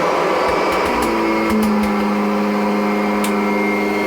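Kirby Avalir upright vacuum running steadily with a high whine, its brushroll driven by a freshly fitted belt that no longer slips. A lower hum joins about a second in.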